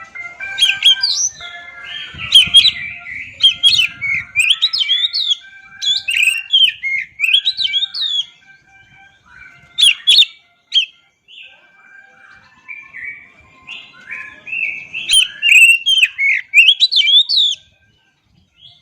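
Oriental magpie-robin (kacer) singing a loud, varied song of whistled notes, quick chirps and rising and falling phrases in bursts, with a quieter stretch in the middle.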